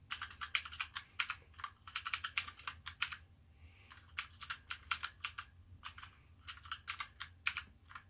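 Clicky blue switches of an Apoint TUF mechanical keyboard being pressed in quick runs of sharp clicks, broken by short pauses about three seconds in and again around six seconds in.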